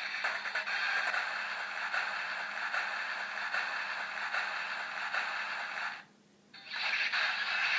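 Electronic sound effect playing from a DX Dice Saber toy's small speaker: a steady, scratchy whirring noise that cuts out briefly about six seconds in and then starts again.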